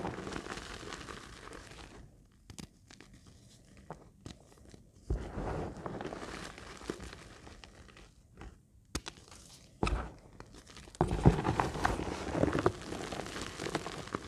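Hands squeezing and crushing crumbled reformed Magnesia gym chalk in the palms: dry, powdery crunching and crumbling. The crunching comes in several separate squeezes with quiet gaps between them, and the longest and loudest squeeze comes near the end.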